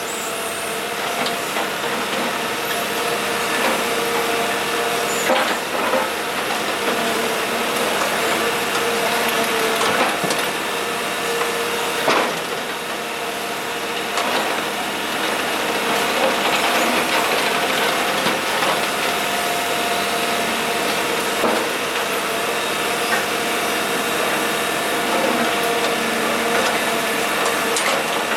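Kobelco SK125W wheeled excavator's diesel engine and hydraulics running steadily, with a steady whine, as it works up asphalt. Scattered knocks and scrapes come from the bucket on the broken asphalt.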